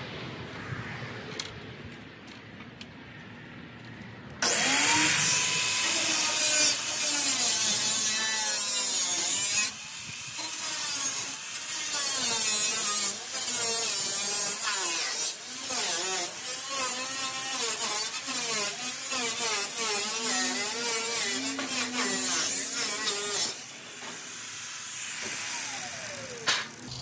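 Corded angle grinder cutting through the edge of corrugated tin roofing: a loud metal-cutting screech starts suddenly about four seconds in, its motor whine wavering up and down with the load. Near the end the cutting stops and the motor winds down with a falling whine.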